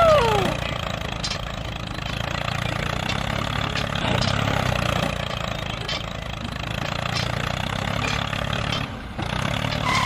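Tractor engine running steadily with a low rumble, and a short sound that glides up and down in pitch right at the start.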